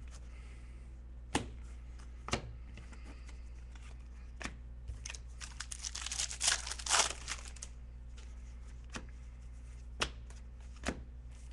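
Wrapper of an Upper Deck basketball card pack being torn open and crinkled by hand, loudest a little past the middle. Single light taps come before and after it.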